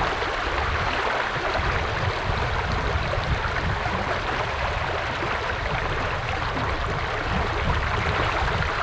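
River water running and rippling, a steady rushing noise with no pauses.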